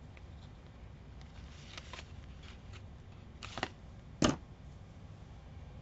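Faint handling of fly-tying materials at the vise as strands of flashabou are picked out: light rustling and small clicks, a brief rustle about three and a half seconds in, then one sharp click.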